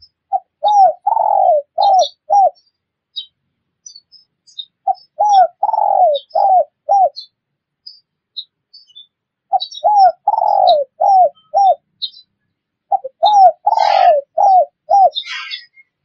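Spotted dove (tekukur) cooing: four phrases in a row, each of five short coos with a longer, drawn-out note in the middle, repeated about every four seconds. Faint high chirps of small birds are heard between the phrases, and there is a short scratchy chatter near the end.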